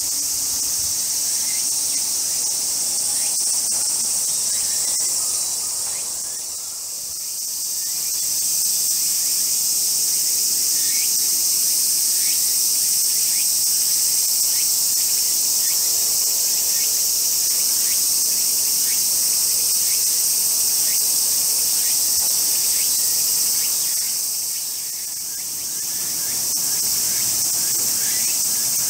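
Summer cicada chorus: a loud, steady, high-pitched buzzing that dips briefly twice.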